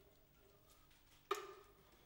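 Hushed room tone with a single sudden click a little over a second in, dying away within half a second.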